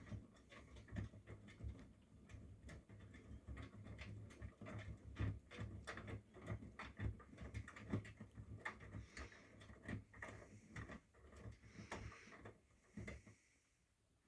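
Miele front-loading washing machine tumbling a wash load: a low motor hum under irregular clicks and soft knocks from the turning drum, which stops near the end.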